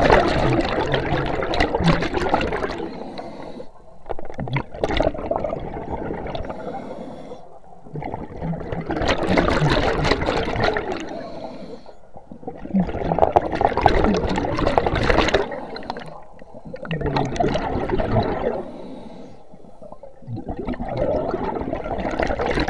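Scuba diver's exhaled bubbles gurgling out of the regulator, close to the camera, in rushes of about two to three seconds that come roughly every four seconds with the breathing, five or six times.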